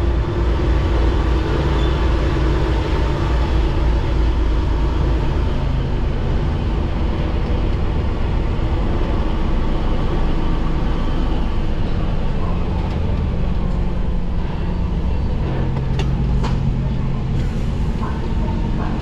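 Lorry's diesel engine running at low speed, heard from inside the cab as the truck creeps along a ferry's vehicle deck. The engine note steps up slightly about twelve seconds in, and a few sharp clicks come a little later.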